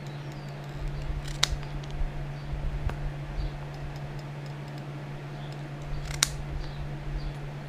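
Two sharp clicks about five seconds apart, with a fainter tick between them and light handling noise, over a steady low hum; typical of hand tools being worked at a leatherworking bench.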